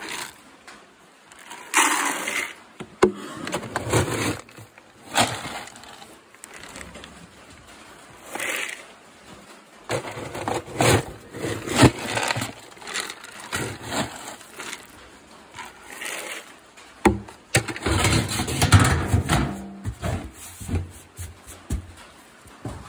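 Plastic scoop digging into pelleted horse feed and pouring the pellets into a plastic bucket: repeated short scrapes and rustling pours, with a longer, louder pour near the end.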